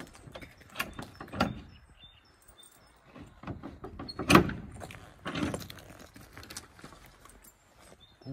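An OSB board door being unlocked and pulled open: a series of knocks, clicks and scrapes, the loudest knock about four seconds in, with footsteps on a concrete step at the start.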